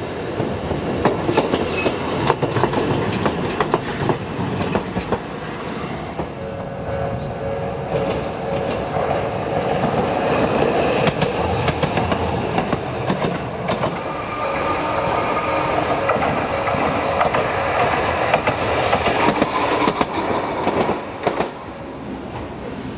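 Toden Arakawa Line streetcars running past at close range, their wheels clacking over the rail joints, with a steady whine through the middle.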